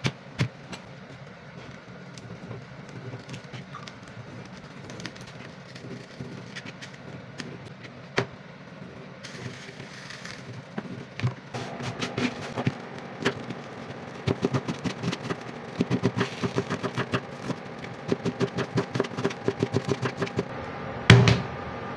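Kitchen knife cutting fish and then chopping red onion on a plastic cutting board: the blade knocks on the board, a few scattered strokes at first, then steady rapid chopping at about four or five strokes a second through the second half, with one louder knock near the end.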